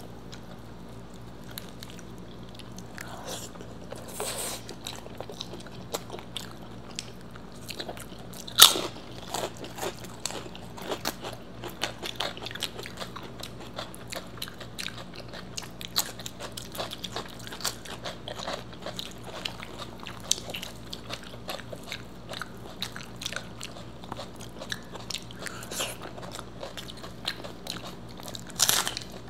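Close-miked eating by two people: crunchy bites and chewing of fried Indian food and crisp papad fryums, a steady patter of small crunches. A loud sharp crunch comes about eight and a half seconds in, and another near the end.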